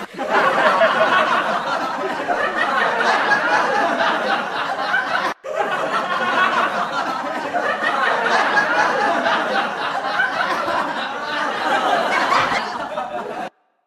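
A crowd laughing: many overlapping laughs in a dense mass. It breaks off for an instant about five seconds in and stops abruptly near the end.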